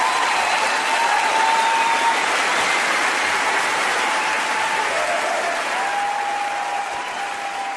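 Crowd applauding, with a few drawn-out cheers over the clapping; it begins to fade toward the end.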